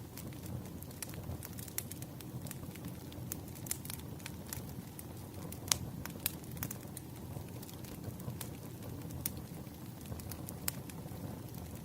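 Campfire burning: a steady low rumble of flames with scattered sharp crackles and pops from the burning wood, one louder pop a little before halfway.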